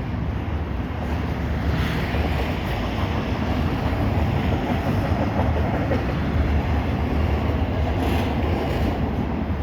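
A CPKC double-stack container train's intermodal cars rolling past: a steady rumble of steel wheels on the rails, with a little louder clatter about two seconds in and again near the end.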